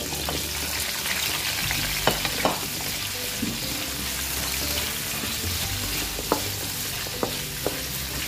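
Carrot and potato pieces pan-frying in hot oil in a wok: a steady sizzle that starts as they drop in, with a wooden spatula stirring them and now and then knocking sharply against the wok.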